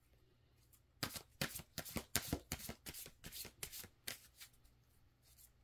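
Tarot deck being shuffled by hand: a quick run of card clicks and flicks starting about a second in and lasting about three and a half seconds.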